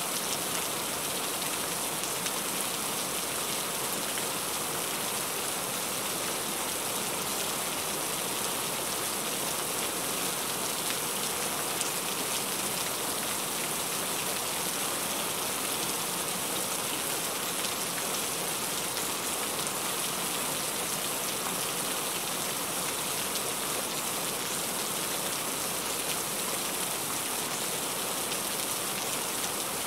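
Steady rain falling on a car's roof and windshield, heard from inside the cabin.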